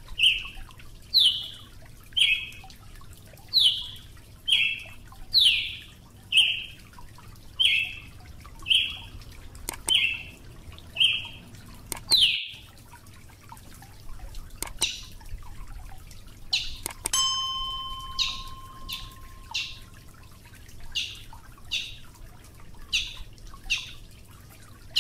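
Brazilian tanager calling: a steady series of short, sharp notes, each pair a falling note followed by a shorter one, repeating a little more than once a second. The series cuts off abruptly about halfway through, then resumes more sparsely.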